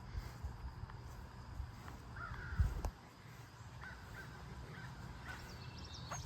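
Several short bird calls, scattered through the latter part, over a low rumble of wind on the microphone, with one louder low bump about two and a half seconds in.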